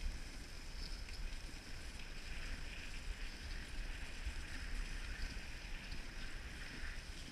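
Dog sled gliding over packed snow: a steady hiss from the runners with a low rumble underneath.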